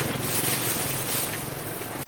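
Steady outdoor background noise with faint voices, like a roadside market with passing traffic.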